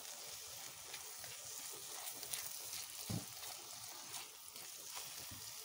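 Tomato-onion masala sizzling gently in a wok while a spatula stirs and scrapes through it, with small clicks of the spatula on the pan and one duller knock about three seconds in.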